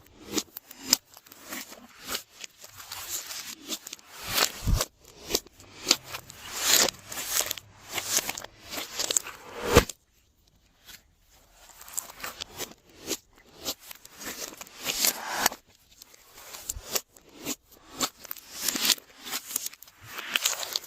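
Glossy slime being squeezed and mixed by hand: sticky crackling, squishing and popping clicks in uneven swells. There is a short silent break about ten seconds in.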